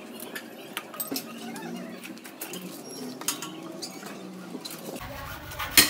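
Scattered light clicks and metal clinks from a scooter's front suspension fork and tools being handled as the fork is taken apart, with one sharp knock near the end.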